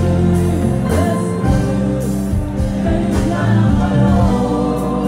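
Gospel worship music: singing over a band with held bass and keyboard notes, running on without a break.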